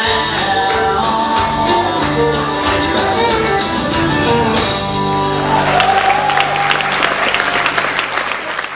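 A country song's instrumental ending, with audience applause breaking out about halfway through over the last notes and growing louder as the music fades.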